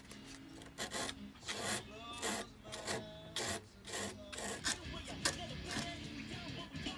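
Repeated back-and-forth hand-filing strokes, about two a second, on a Spyderco Shaman folding knife, chamfering its edges. Each stroke is a dry rasp.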